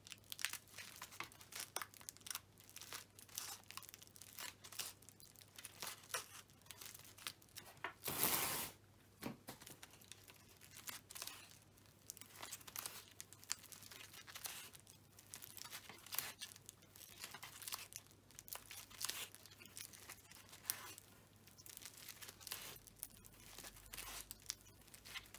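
Faint, irregular crinkling and rustling of brown floral tape being wrapped around a crumpled aluminium-foil trunk core, with one louder rasp about eight seconds in.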